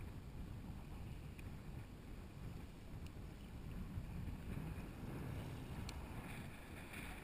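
Faint wind noise on the camera microphone with water lapping against a plastic kayak hull, and a few soft clicks.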